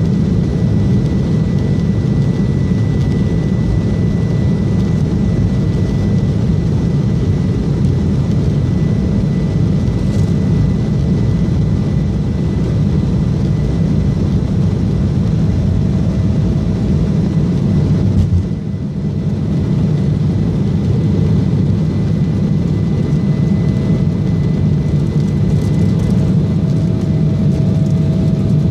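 Cabin noise of an Embraer E170 jet at takeoff thrust on its takeoff roll: loud steady turbofan noise with runway rumble and a faint high tone. About two-thirds through, the low rumble drops away for a moment as the jet lifts off, then the engine noise carries on into the climb.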